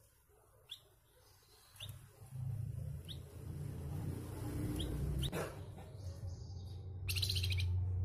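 Caged flamboyan songbird giving short, sharp single chirps every second or so, then a rough, buzzy rattling call about seven seconds in, the loudest sound. A low hum runs underneath from about two seconds in.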